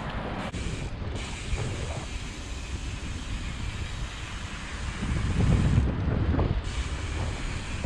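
Wind rumbling on an action-camera microphone, with tyre rumble from a bike rolling over paving stones; it swells louder about five seconds in, then eases.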